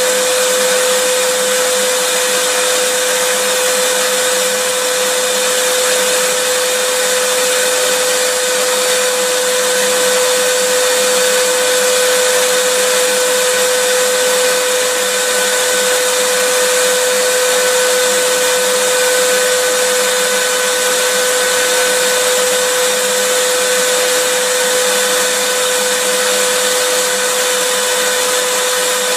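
Vacuum cleaner running steadily, a loud even hiss with a motor whine held on one pitch, without any change.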